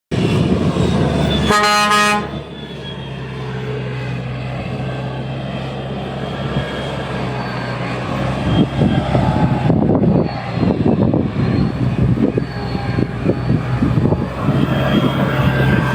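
Overloaded truck's diesel engine labouring under load, with a short horn toot about two seconds in. About halfway through, the engine note turns rough and uneven.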